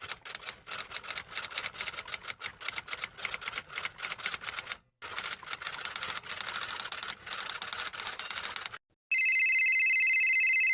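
Rapid typing, keys clacking in quick succession with a short break about halfway. Then, after a moment's gap, a steady high-pitched electronic beep is held for about two seconds near the end.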